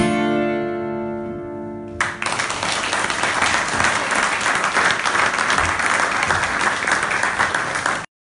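A folk band's last chord on acoustic guitars and fiddle ringing out and fading, then an audience applauding from about two seconds in; the applause cuts off suddenly near the end.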